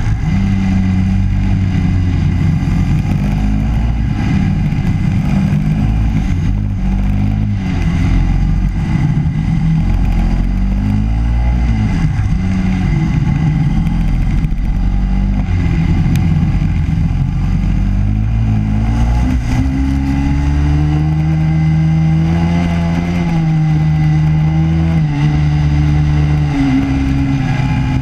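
Racing kart engines at race speed, their pitch rising as they accelerate and dropping as they lift off for corners.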